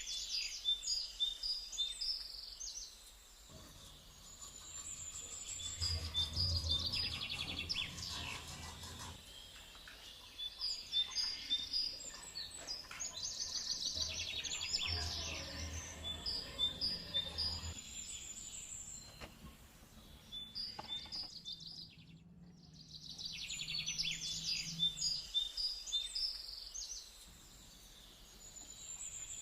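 Small birds chirping and twittering in repeated bursts of rapid high notes, with quieter gaps between, over a faint low rumble.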